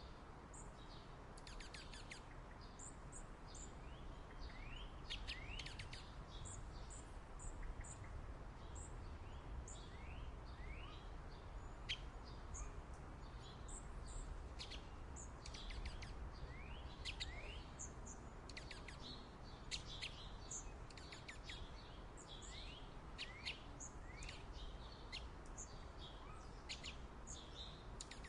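A flock of small songbirds chirping and twittering, many short high calls overlapping in quick succession, over a steady low background rumble.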